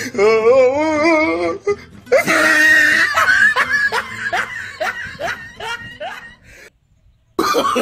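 Dubbed-in comic laughter sound effect: a wavering, warbling laugh for about a second and a half, then a loud burst of laughter breaking into a string of short falling "ha" laughs that fade away, followed by a brief silence.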